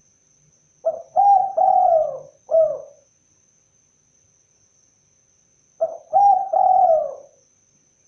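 Spotted dove (tekukur) cooing: two phrases of low, hoarse notes about five seconds apart, the first of four notes and the second of three.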